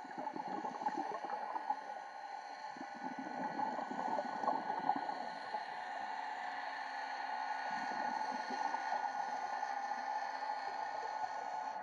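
Underwater sound picked up by a submerged camera during a reef dive: a steady hum with several held tones, under irregular crackling and bubbling that swells every few seconds.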